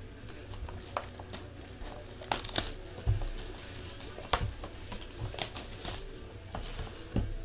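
Plastic shrink wrap crinkling and crackling as a sealed box of football trading cards is handled and unwrapped, with scattered sharp clicks and taps.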